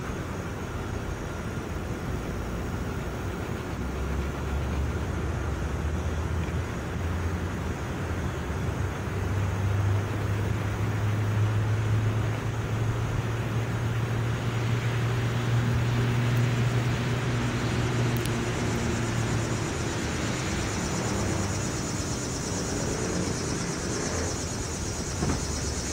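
A low engine drone that steps up in pitch about nine seconds in and drops away about twenty seconds in, over steady outdoor background noise.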